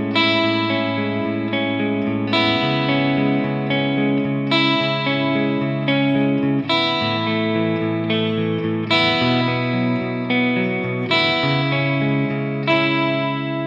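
Electric guitar playing a slow arpeggio sequence with open strings ringing over changing chord shapes in E major / C sharp minor. The chord changes about every two seconds, and the notes overlap and sustain, the last chord fading near the end.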